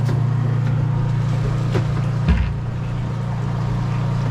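A boat's engine running with a steady low drone, with two short knocks a little before halfway.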